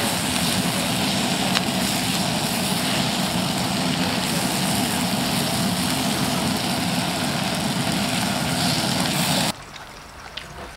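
Kovea Camp-1 gas burner running at full flame under a wok of sizzling stir-fry, a loud steady rushing noise. It stops abruptly about nine and a half seconds in.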